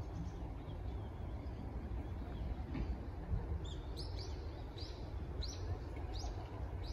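A small bird calling a run of about five short, high, falling notes, evenly spaced and starting about halfway through, over a steady low rumble of outdoor background noise.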